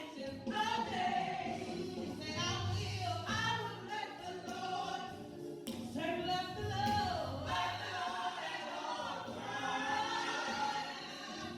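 Church choir singing a gospel song.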